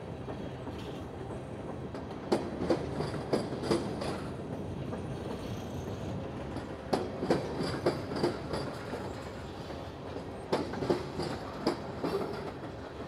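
Freight cars (gondolas, a tank car, boxcars) rolling past over steady rail rumble. The wheels clack over a rail joint in sets of about four sharp clicks, one set every four seconds or so as each car's wheel trucks cross it.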